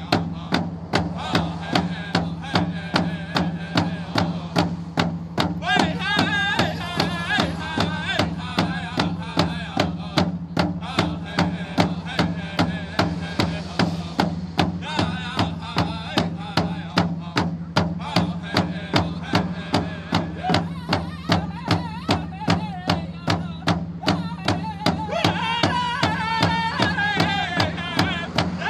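Pow wow singers beating hand-held frame drums in a steady, even beat, a bit under two strokes a second, while singing a song together. The singing rises into high, strong lines about six seconds in and again near the end.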